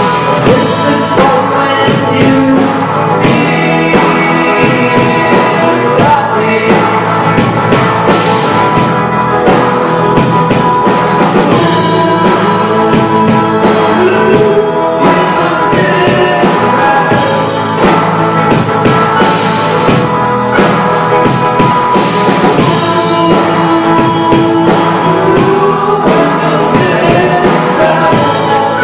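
Live rock band playing a song, with electric guitars, drum kit and a singer.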